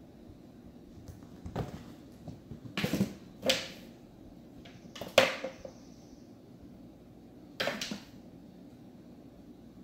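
A kitten batting and pushing an empty cardboard box on a hardwood floor: several short cardboard scrapes and knocks, the loudest about five seconds in.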